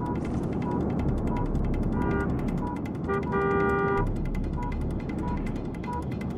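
Car horn honking in short blasts, then a longer blast about three seconds in, over a steady electronic beeping about one and a half times a second from a vehicle alarm or warning chime, at a multi-car pileup.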